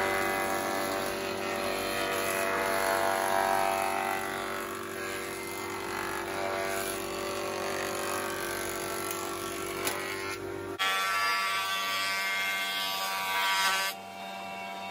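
Jointer running as a glued-up pallet-wood slab is pushed over its cutterhead: a steady motor whine with the hiss of the knives planing the wood. The sound changes abruptly about eleven seconds in and drops near the end.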